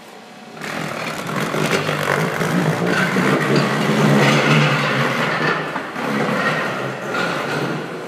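Hoverboard's wheels and motors whirring on a smooth concrete floor while it carries a man lying on his back, spinning and gliding. The sound starts about half a second in and eases off near the end.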